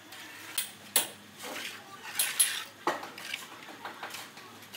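Notched steel trowel scraping and combing cement mortar across a concrete floor, with several sharp metallic clinks, the loudest about one second in and just after two seconds.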